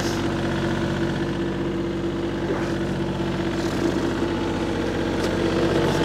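Tractor engine running steadily at an even speed.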